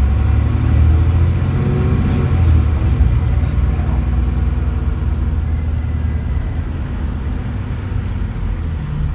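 Dennis Trident double-decker bus heard from inside the upper deck while under way: a loud, steady low engine drone that climbs slightly in pitch over the first two or three seconds, then holds and eases a little toward the end.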